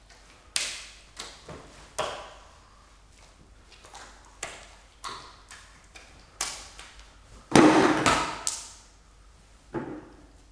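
Wet slaps of three hearts being juggled and caught in bare hands, an irregular series of soft smacks about one every half second to second. About three quarters of the way through comes the loudest, longer wet splat, as one heart drops to the floor, and a further thud near the end.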